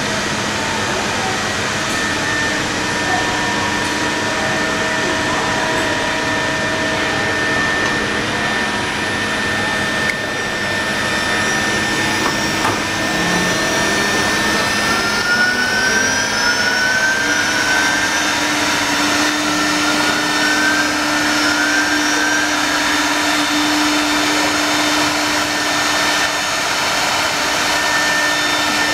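Six-spindle CNC router running, a loud, steady mechanical noise with several held whine tones from its spindle motors. Between about 11 and 23 seconds in, short rising whines repeat over it.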